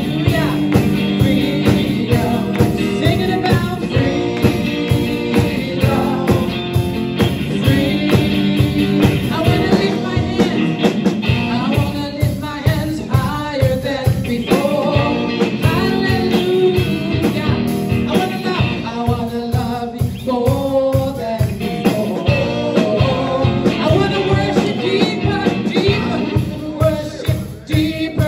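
Live worship band playing a song: a woman singing lead over electric guitar and a steady drum beat.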